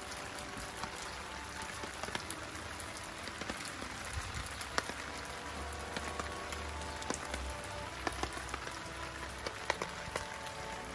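Steady rain falling on wet pavement: an even hiss dotted with scattered sharp ticks of single drops.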